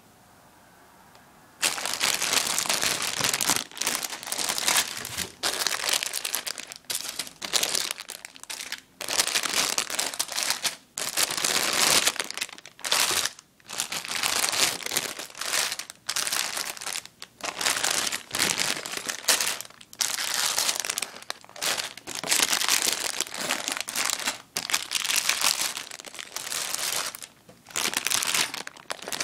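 Clear plastic polybags full of Lego Technic pieces crinkling loudly as they are handled, in irregular bursts that begin about a second and a half in.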